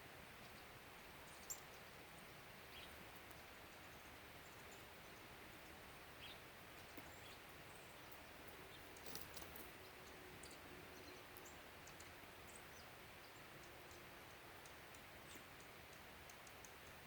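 Near silence: faint outdoor ambience with scattered soft clicks and a few faint high chirps.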